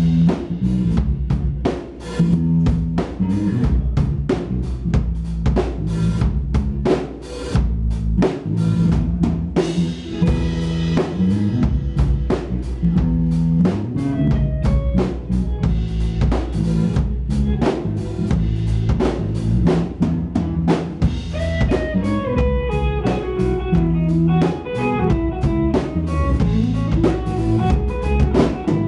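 Live rock band playing a song: a drum kit beats steadily with electric guitar. About halfway through, a note-by-note melody line comes in over the drums.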